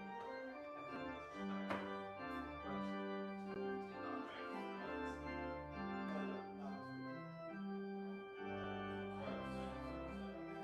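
Church organ playing the postlude after the dismissal: sustained chords over held bass notes, changing about once a second.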